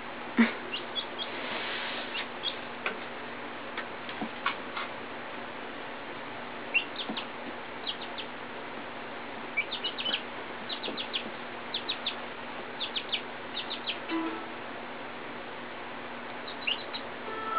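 Young chickens peeping: short, high chirps that come in scattered clusters and are busiest in the middle, over a steady hiss. There is a sharp tap just after the start.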